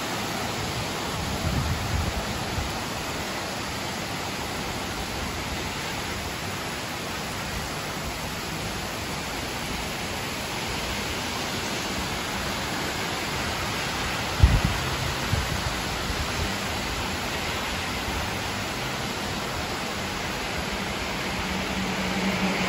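Steady rain falling, an even hiss of many drops. About two-thirds of the way through, a sudden low thump with short rumbles after it is the loudest sound; near the end a low steady hum comes in under the rain.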